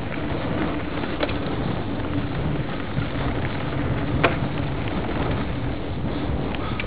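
Wind buffeting the microphone and tyres rumbling over a dirt trail while riding fast through woodland, with a faint steady hum underneath. Two sharp knocks come about a second in and about four seconds in, the second the louder.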